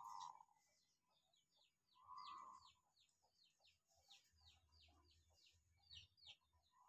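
Faint outdoor birdsong: a long run of quick, high, descending chirps, with three short lower calls standing out at the start, about two seconds in, and at the end.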